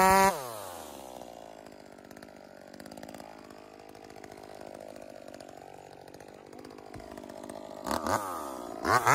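Modified Echo 2511 25cc two-stroke chainsaw coming off wide-open throttle: its high, steady note falls away to idle a moment in. It idles quietly for several seconds, is blipped twice near the end, and is then revved back up to full throttle.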